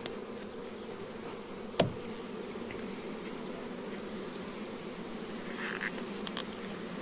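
A swarm of honey bees buzzing around the hive and frames in a steady, even hum. A single sharp knock sounds about two seconds in.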